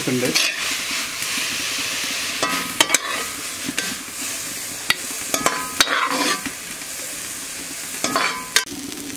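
Half-cooked thazhuthama leaves sizzling in coconut oil in a wok while a metal spatula scrapes them out. Sharp metallic clinks ring out a few times, in clusters about 2.5, 5.5 and 8 seconds in, as the spatula knocks against the wok and a steel plate.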